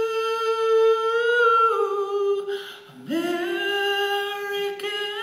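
Live singing of long held notes between lines of the song. About three seconds in there is a short gap, then a new note slides up and is held.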